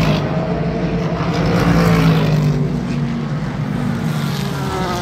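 Race cars passing at speed, one after another, each engine note dropping in pitch as it goes by, over a constant rumble of more engines on the track.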